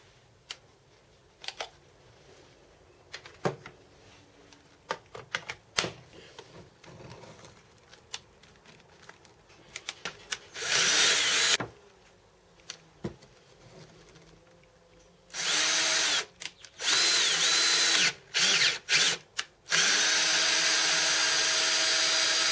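Electric drill motor running in bursts with a steady whine: one short run about halfway through, then several quick starts and stops, and a longer steady run near the end. Light clicks and knocks of handling come before it.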